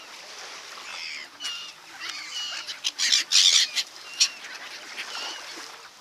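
A gathering of swans and gulls on the water calling: many short squawks and honks, with a loud, harsh burst about three seconds in.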